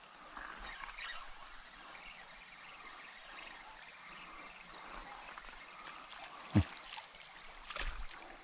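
Steady high-pitched chorus of insects chirring. A brief low thump about six and a half seconds in, and a softer one near the end.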